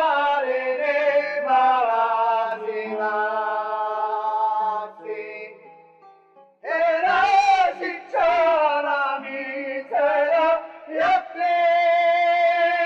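Sicilian folk group of men and women singing together in long, drawn-out held notes. The singing breaks off for about a second midway, then starts again.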